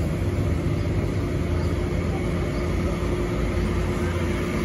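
Vehicle engines climbing a steep grade, led by a fully loaded Mitsubishi Canter light truck's diesel labouring under load, in a steady low drone.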